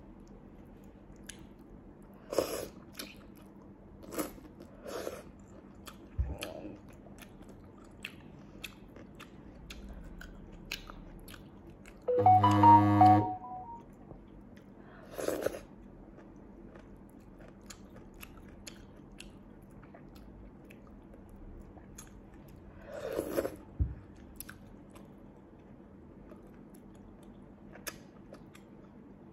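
Close-miked eating sounds: small sea snails (bimba) in chili sauce being chewed and bitten, with soft clicks scattered through. One louder pitched sound, about a second long, comes near the middle.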